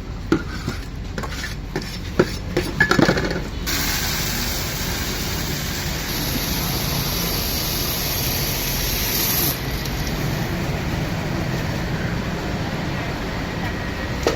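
A few sharp knocks and clatters, then a loud steady hiss starts abruptly about four seconds in and cuts off suddenly a little before ten seconds, leaving a lower steady background noise.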